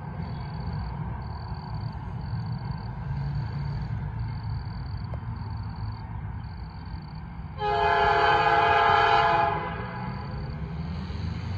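Norfolk Southern AC44C6M diesel locomotive running light, its engine rumbling steadily. Its Nathan P5 five-chime air horn gives one blast of about two seconds near the end.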